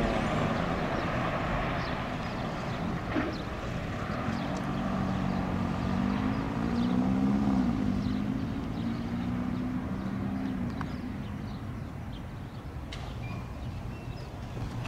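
Fire engine's diesel engine pulling away and fading, its low pitch rising and falling as it accelerates through the gears, with light street traffic.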